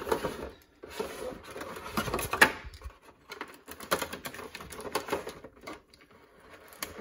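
Clear plastic blister tray and plastic insert being handled and pried apart while securing tape is worked loose, giving irregular crinkles and clicks, with one sharper click about two and a half seconds in.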